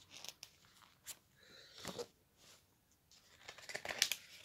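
Glossy magazine pages rustling and crinkling as a page is handled and turned, with a few light clicks and a louder burst of crackling near the end.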